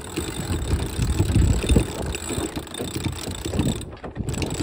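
Wind buffeting the microphone on a sailboat's deck: a gusty low rumble that rises and falls, dipping briefly near the end.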